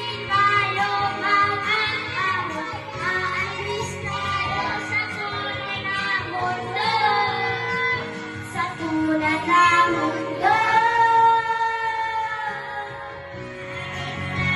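Music with a high singing voice, the melody moving through short phrases and holding one long note about two-thirds of the way through.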